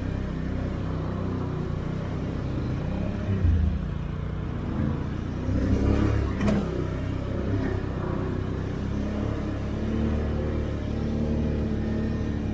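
Can-Am Outlander 850 ATV's V-twin engine running on a trail, its pitch rising and falling with the throttle, with louder surges about three and a half and six seconds in. There is a single sharp knock at about six and a half seconds.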